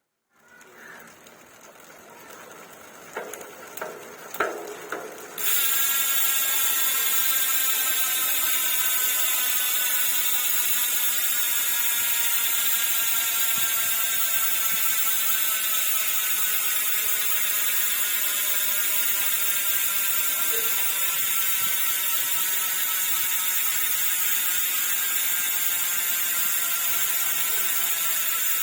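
Arc MT-006 bicycle hub's freehub ratcheting as the wheel spins free. The pawl clicks run together into a loud buzz that starts suddenly about five seconds in, after a few quieter clicks, and slowly falls in pitch as the wheel slows.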